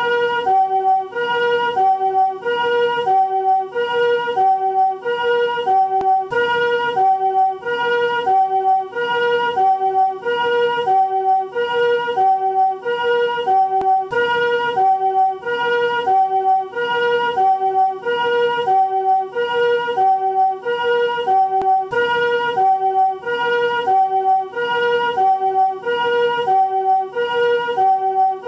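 Japanese ambulance's newer-type chord ('comfort') siren sounding its two-tone hi-lo call, with each tone a chord rather than a single pitch. It swaps evenly between the higher and the lower chord about every half second, on and on.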